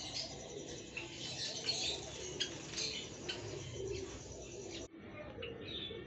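Java sparrows chirping, a string of short, high calls from several birds.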